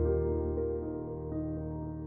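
Calm background music of held chords, a new chord with a deep bass note sounding at the start.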